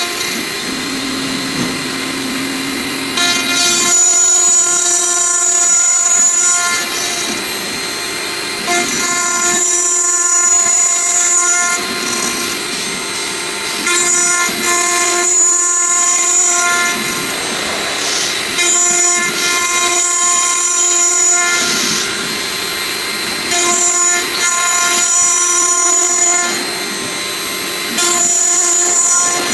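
Stone CNC machine running. A high mechanical whine with many overtones comes in for two to three seconds at a time, about every five seconds, between quieter spells of noise.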